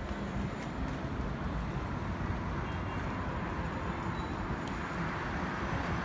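Steady road traffic noise from a busy multi-lane avenue, a constant low rumble of cars and buses passing below.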